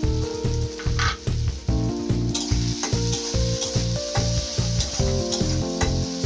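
Chopped onion and tomato sizzling in hot oil in a karahi while a spatula stirs them, over background music with a steady beat.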